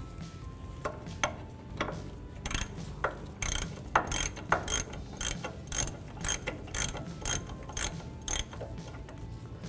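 Hand ratchet backing out a loosened brake caliper bracket bolt, its pawl clicking. A few scattered clicks come first, then quick back-and-forth strokes give a burst of clicks about every half second until near the end.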